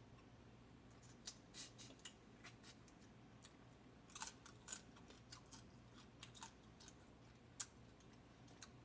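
Faint, scattered crunches and clicks of eating blue crab: chewing and crab shell being handled, over near silence.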